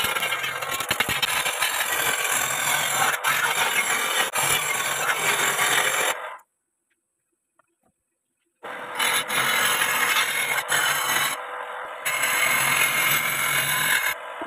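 A homemade wood lathe spinning a billet of ulin (Borneo ironwood) while a hand-held turning tool cuts into it, a harsh continuous scraping and rasping. About six seconds in the sound cuts out completely for about two seconds, then the tool scraping on the spinning wood resumes.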